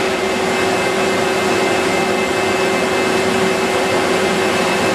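Lollipop production machinery, a batch roller feeding a candy-rope extruder, running steadily: an even mechanical whir with one held low tone.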